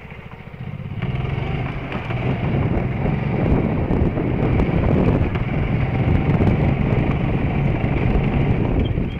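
Golf cart driving: its running noise grows louder about a second in as it speeds up, then holds steady as it rolls along.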